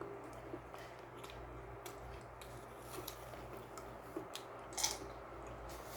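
Quiet eating sounds: chewing with a few light clicks, the loudest a little before the end.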